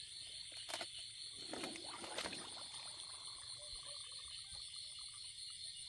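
Steady high-pitched chorus of night insects, with brief rustling and light splashing of footsteps in mud and shallow water about one and two seconds in.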